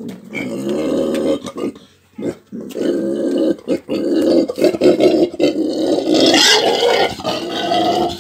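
A pet sow grunting and grumbling in long, rough runs as she is prodded awake and gets up complaining, with a sharper, higher cry about six seconds in.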